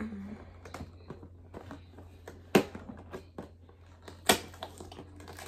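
Small advent-calendar blind bag being handled and torn open: scattered crinkling and small clicks, with two louder sharp clicks about two and a half and four seconds in.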